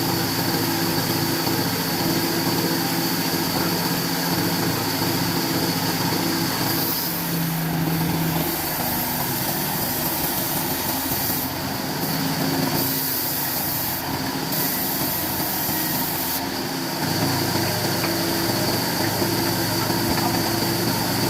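Wood-cutting machine running steadily, its sound changing somewhat between about 7 and 17 seconds in before settling back.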